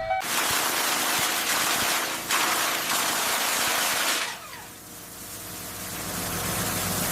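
A loud rushing hiss cuts in suddenly, breaks off briefly about two seconds in, and fades about four seconds in, leaving a quieter low hum that swells again near the end.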